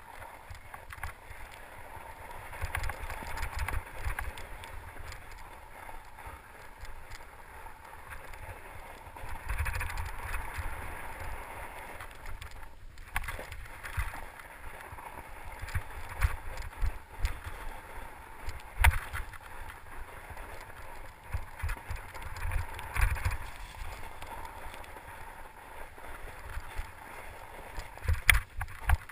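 Mountain bike ridden over a snowy, leaf-covered trail: steady tyre and ride noise with uneven low thumps, and a few sharp knocks from bumps, the loudest about two-thirds of the way through and near the end.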